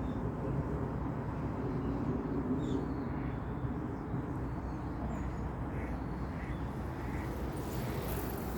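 Outdoor ambience: a steady low rumble with a few faint, short bird calls scattered through it.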